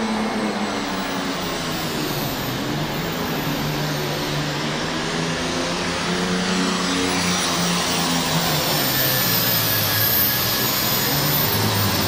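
Turbocharged diesel engine of a John Deere 4255 super farm pulling tractor running flat out under load as it drags the weight-transfer sled down the track.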